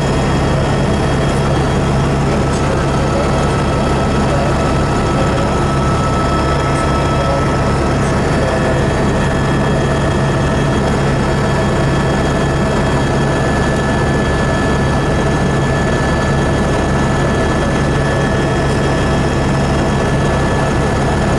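Helicopter cabin noise in flight: the engine and rotors make a loud, steady drone with a constant low hum and a few steady higher tones over it, unchanged throughout.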